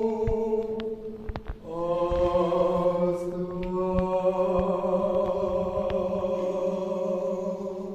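Chanted singing: voices holding long, steady notes, breaking off about a second and a half in, then starting again on a new held chord that fades out near the end.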